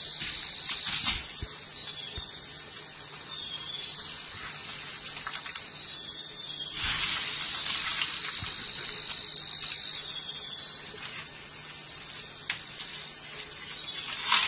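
Insects calling in a steady, shrill high chorus, with a second, slightly lower tone that comes and goes in spells of a couple of seconds. Rustles and snaps of brush and vines as someone pushes through the undergrowth, loudest about seven seconds in.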